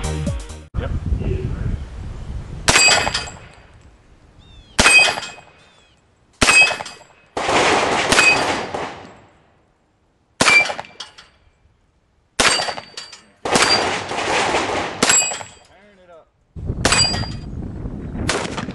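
Music cuts off in the first second, then about eight gunshots a second or two apart, several followed by the ringing clang of hit steel plate targets.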